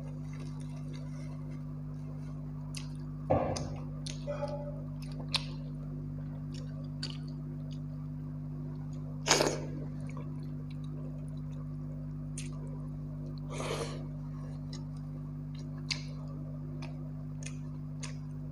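Hand-eating sounds of pakhala, wet water-soaked rice squished and mixed by the fingers, with chewing and small mouth clicks. Three louder wet bursts about three, nine and fourteen seconds in. A steady low electrical hum runs underneath.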